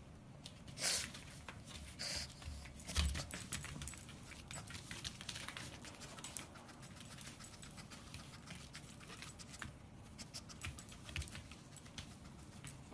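A pug scrabbling on a wooden parquet floor while it noses and paws a large citrus fruit around: a patter of light clicks and jingling. A few louder knocks come about a second in and again around three seconds.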